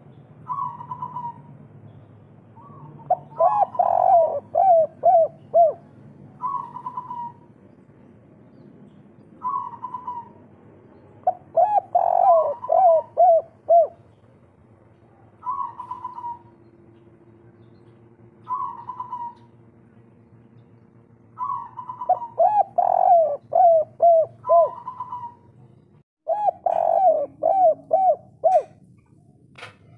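Spotted dove (tekukur, a local kuk-3 type) cooing: short single coos every few seconds, broken four times by a quick run of five or six rolling coo notes. The bird is calling hard, as in breeding condition.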